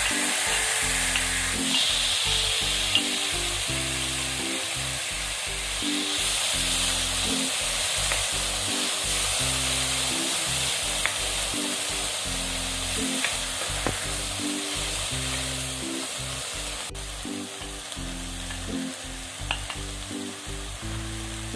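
Pickled bamboo shoots and pork belly sizzling steadily as they are stir-fried in a pan, with a few sharp clicks of the spatula against the pan. The sizzle eases a little toward the end.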